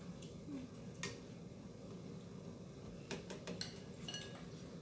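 Chopsticks and utensils clinking and tapping against ceramic bowls and dishes: one tap about a second in, then a cluster of clinks from about three to four and a half seconds in, a couple ringing briefly. A low steady hum runs underneath.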